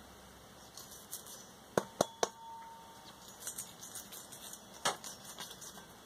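Small bronze pieces clinking as a fresh bronze casting and loose bronze shot are handled. Three sharp clinks come close together about two seconds in, the last ringing briefly, with another clink later and scattered light ticks.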